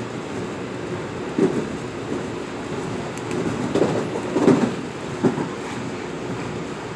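Metro-North M8 electric multiple-unit railcar running at speed, heard from inside the car. A steady rumble is broken by a few short thuds of the wheels on the track, the loudest about four and a half seconds in.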